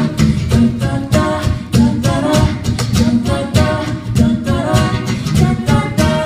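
Pop song performed live and acoustic: a voice singing a melody over strummed acoustic accompaniment with a steady beat.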